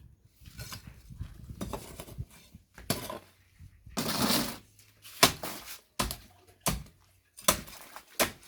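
A series of sharp clinks and knocks, about six spread irregularly, with a short scraping rush about four seconds in.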